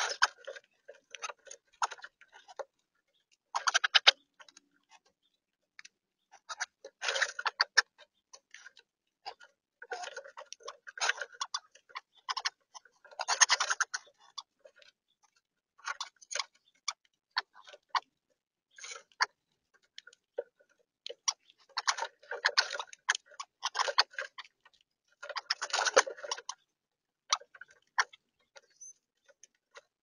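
Irregular bursts of rapid tapping and clicking, close up: brown-headed cowbirds pecking seed off a picnic-table feeder, their beaks striking the tabletop.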